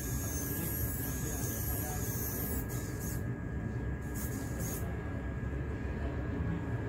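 Small metal RC winch running, its electric motor and gears whirring steadily as it reels in the wire cable and drags an RC crawler across a tiled floor.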